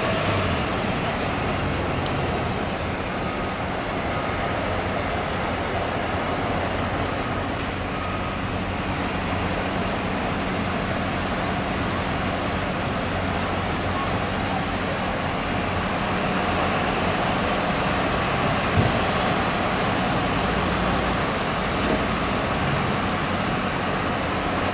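Fire apparatus engines running at the scene, a steady low diesel rumble mixed with street traffic noise. A few brief high squeals come through about seven to nine seconds in.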